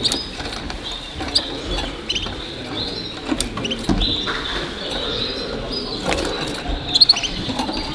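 Canaries in show cages chirping and calling in short high bursts and trills, with a few sharp clicks over a steady hall murmur.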